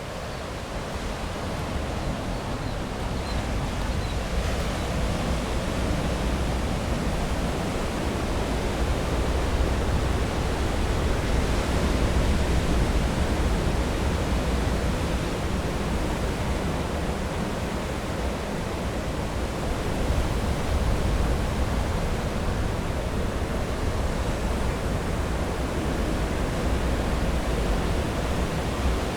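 Steady rushing ambient noise with a deep rumble underneath, growing louder over the first few seconds and then holding with slow swells.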